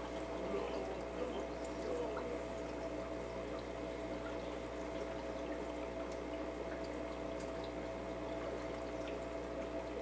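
Aquarium filter running: water trickles and pours steadily over a constant hum.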